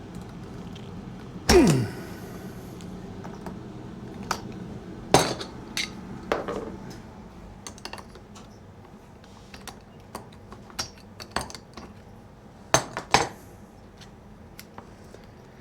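Tools and small metal parts clinking and clattering on a workbench while a chainsaw is being taken apart. A loud clank comes about a second and a half in, more knocks follow around five to seven seconds, and two sharp clanks come close together near the end.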